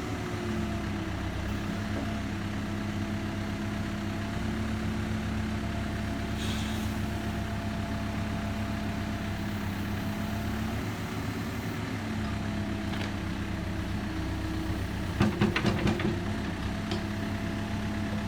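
Backhoe's diesel engine running steadily, its pitch rising and falling slightly as it works, with a short burst of knocks about fifteen seconds in.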